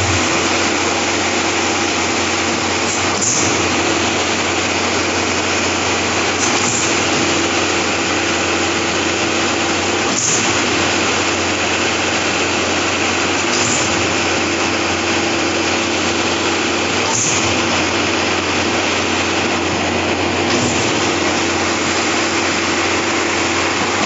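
Trailer-mounted diesel concrete pump running steadily under load, with a sharp knock about every three and a half seconds as the pump changes stroke.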